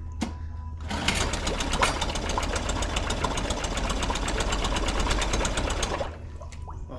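Honda 7.5 hp four-stroke outboard engine catches about a second in, runs with an even rapid firing beat for about five seconds, then dies. This is on a freshly cleaned carburettor, and the owner later blames the weak running on a brittle fuel filter restricting fuel flow.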